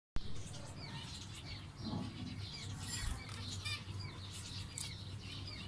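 A colony of zebra finches calling: many short, nasal chirps overlapping one another without pause, over a steady low hum.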